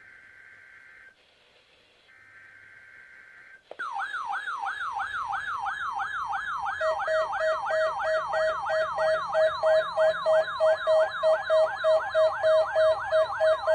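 Two faint buzzy data bursts of an Emergency Alert System SAME header, then a weather alert radio's alarm sets off: a loud warbling siren whose pitch falls over and over, about three times a second, joined a few seconds later by a steady pulsing beep. It marks a warning-alarm test activating the receiver.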